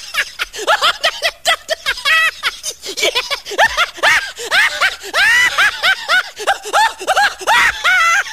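Human laughter dubbed over the picture: hard, high-pitched, squealing bursts, several a second, each rising and falling in pitch. It grows louder and longer from about five seconds in.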